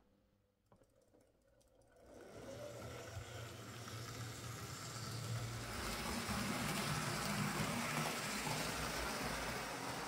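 Near silence with a few faint clicks, then from about two seconds in the running noise of a Hornby OO gauge 'Britannia' model locomotive: a steady motor hum and wheel rattle on the track, growing louder and then holding steady.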